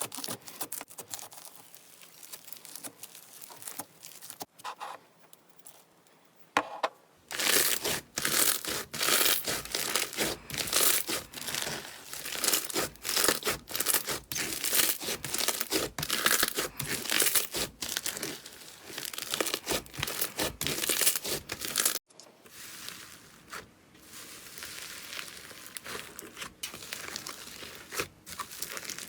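Slime being handled by hand, making dense, irregular crackling and popping. It is soft for the first few seconds and louder from about seven seconds in. It breaks off abruptly about two-thirds through and starts again softer.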